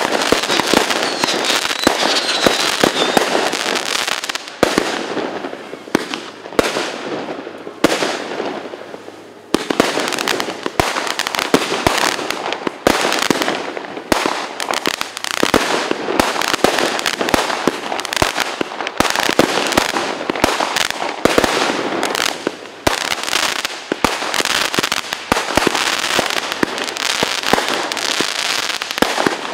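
Dense New Year's fireworks: a continuous crackle of many bangs and firecracker pops overlapping, easing off briefly a few seconds in, then thickening again.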